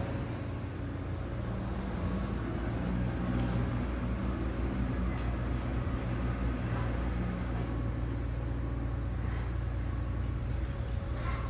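Steady low machinery drone with a faint steady whine above it.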